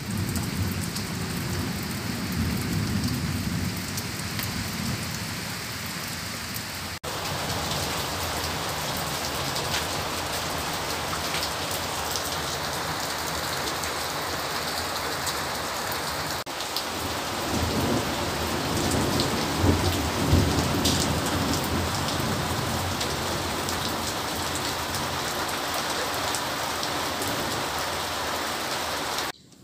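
Steady rain falling, with low thunder rumbling twice: in the first few seconds and again about two-thirds of the way through. The sound cuts off abruptly just before the end.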